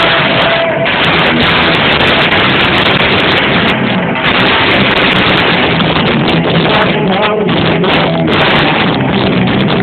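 Rock band playing live, with a loud electric guitar, captured as a harsh, muddy recording.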